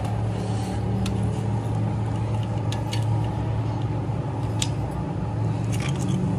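Steady low machine hum, with a few sharp metallic clicks as a welding cable clamp is handled and clipped onto the steel gear's teeth.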